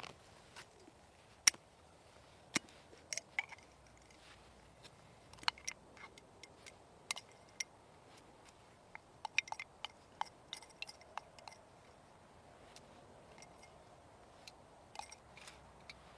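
Irregular sharp clicks and light knocks, a few seconds apart and then in a quick cluster, over a faint steady hiss.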